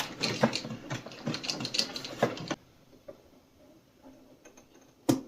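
Quick clicks and knocks of hard plastic parts being handled and fitted together on an animatronic prop, stopping abruptly after about two and a half seconds, followed by a few faint taps and one sharp click near the end.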